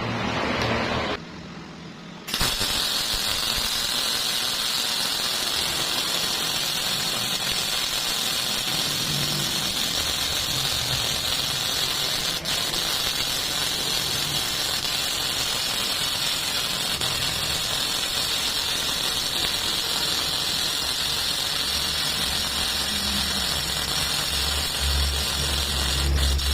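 MIG welder arc burning steadily, a continuous hissing sizzle that strikes up suddenly about two seconds in.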